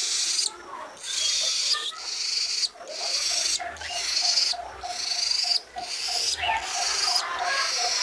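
Budgerigar chick giving raspy, hissing begging calls, repeated about once a second.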